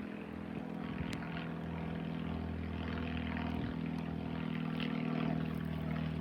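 A distant engine droning steadily at a constant pitch, slowly swelling in loudness and easing off near the end.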